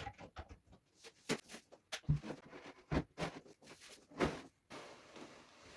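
A series of irregular knocks and clicks, several strong ones spaced about a second apart, settling into a quiet steady hiss near the end.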